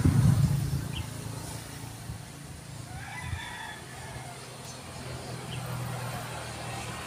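A rooster crowing in the background, one crow starting about three seconds in, over a steady low hum; a loud low rumble fills the first second.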